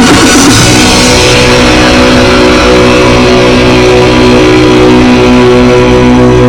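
Loud background music with held, sustained chords.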